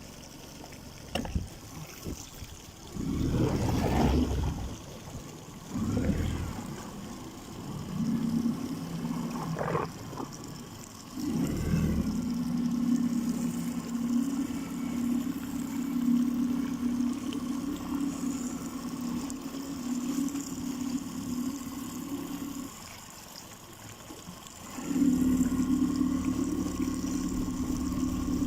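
A small motorboat's engine runs with a steady low drone. It eases off briefly near the end, then picks up again. Early on there are a few short rushes of water sloshing around the hull.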